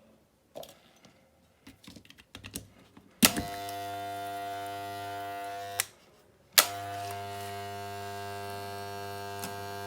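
Mains-powered electric hair clipper, freshly reassembled and oiled, switched on with a click about three seconds in and running with a steady buzz. It is switched off and then on again a second later. A few handling clicks come before.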